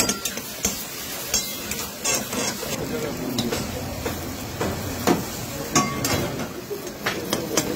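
Chicken karahi sizzling and bubbling in a steel karahi over a high flame, with several sharp metal clinks from the lid and tongs as the lid is lifted off.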